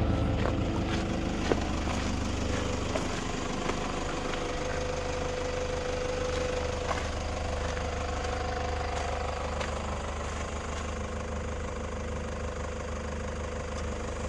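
A camper van's engine running steadily with a low hum, and a faint steady whine in the middle of the stretch.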